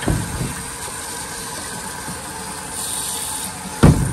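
Water rushing steadily through a garden-hose tank rinser wand pushed into an RV water heater's anode port, flushing sediment from the tank, with one sharp knock near the end.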